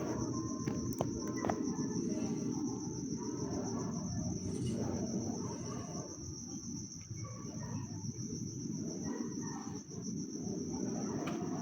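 Crickets trilling steadily at one high pitch, over a low steady rumble.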